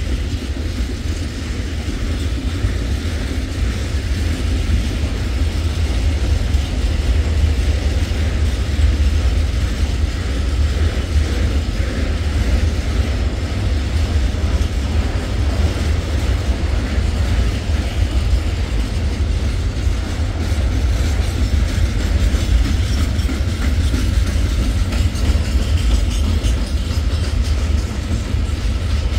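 A long freight train of flat wagons and open-top gondola wagons rolling past, its wheels running on the rails in a steady rumble.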